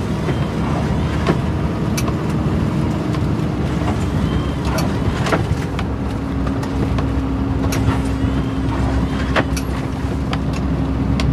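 Scania plow truck running steadily under load as it pushes snow, heard from inside the cab: a continuous low rumble with a steady hum and scattered sharp clicks.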